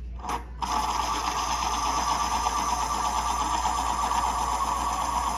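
Electric pencil sharpener running steadily as it grinds a pencil, starting just under a second in after a brief short sound.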